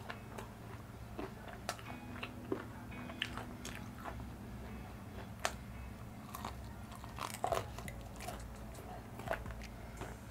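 Close-miked biting and chewing of crunchy Korean fried chicken: irregular crackles of the crust, with the loudest cluster about seven seconds in, over a faint steady hum.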